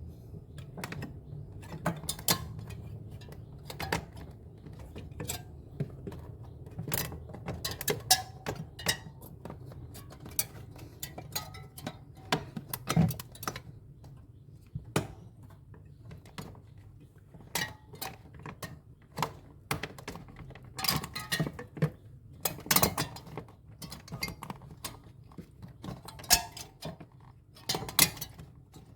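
Irregular clicks, taps and clatter of small hard parts and tools being handled while working on a refrigerator, with a few sharper knocks, over a steady low hum.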